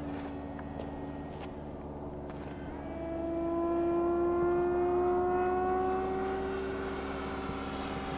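Electric motor and propeller of a radio-controlled airplane in flight, making a steady whine. About three seconds in it grows louder and begins climbing slowly in pitch.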